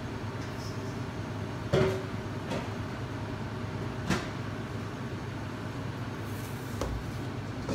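Steady low hum of commercial kitchen ventilation. Over it come three sharp knocks and clanks of kitchen handling. The loudest comes about two seconds in with a short metallic ring, and the others come about four and about seven seconds in.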